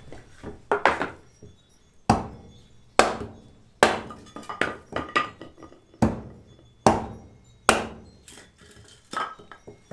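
Firewood being chopped into small pieces for a cooking fire: sharp chops about once a second, some followed by a lighter knock.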